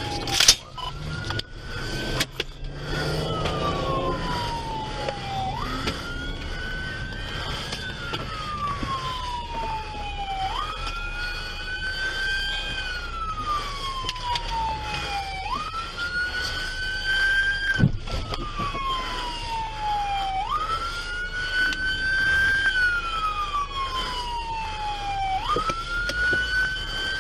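Police car siren wailing from inside a moving patrol car, each cycle rising quickly and falling slowly, about once every five seconds, over the car's engine running; a second siren sounds fainter and higher. A loud knock right at the start and a sharp click about 18 seconds in.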